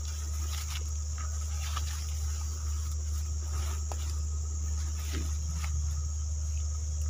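Cow browsing in scrub: scattered rustles and snaps of leaves and twigs as it pulls at the brush, over a steady low hum and a steady high insect drone.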